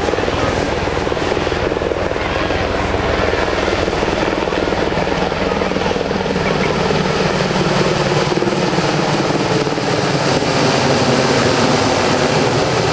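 An HH-60G Pave Hawk helicopter's rotor and the four turboprop engines of an HC-130 Hercules heard together as the two fly in close formation, a steady loud drone that grows slightly louder near the end.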